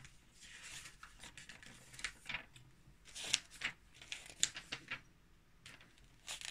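Snack wrappers and packaging rustling and crinkling as hands rummage through a box of packaged snacks, with a handful of short, sharp crackles.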